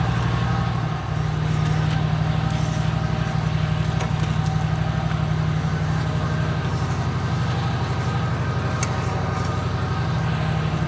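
Concrete mixer truck's engine running steadily at a constant speed, with an even low hum, during the washout after the pour.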